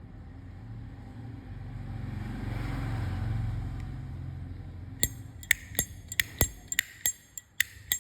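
A low rumble, like a passing vehicle, swells and fades. Then, about five seconds in, a slim brass Zippo lighter being handled gives a quick run of sharp, ringing metallic clicks, two to three a second.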